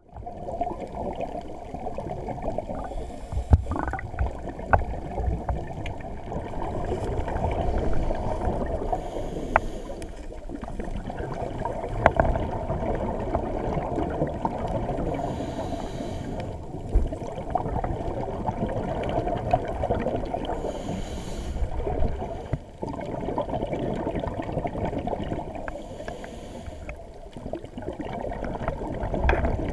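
Muffled underwater sound picked up through a waterproof camera housing: a scuba diver's regulator breathing and bubbling exhaust, swelling and easing every few seconds, with scattered sharp clicks and knocks. Almost nothing is heard above the low range.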